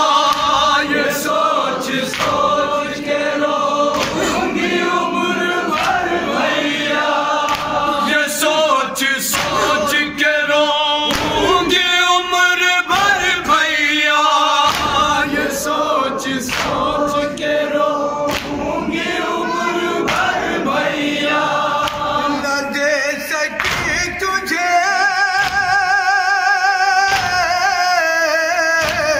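Group of men chanting an Urdu noha (Shia mourning lament) into a microphone, amplified through a PA, with sharp chest-beat slaps (matam) about once a second. Near the end one voice holds a long wavering note.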